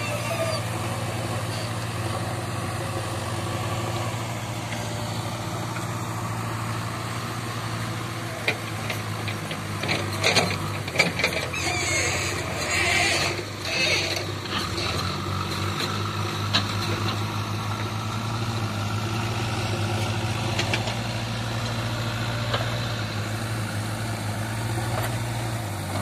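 JCB 3DX backhoe loader's diesel engine running steadily as the machine works, with a cluster of knocks and clanks from about eight to fourteen seconds in.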